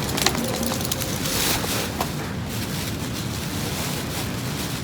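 Wind rushing on the microphone over the wash of the sea, a steady, uneven noise with a couple of faint clicks.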